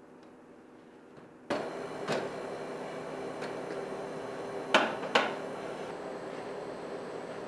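Knocks against a snack vending machine as it is banged and shaken: one about two seconds in, then two louder ones close together about five seconds in, over a steady hum.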